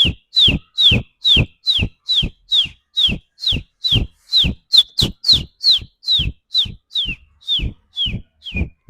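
Baby chickens peeping: a long, even series of short, falling peeps, about two to three a second.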